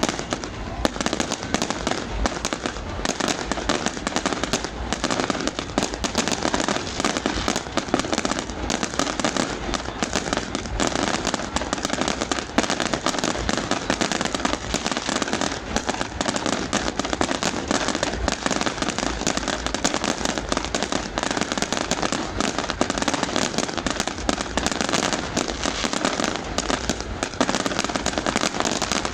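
Fireworks display: a dense, continuous barrage of overlapping bangs and crackles, with no let-up.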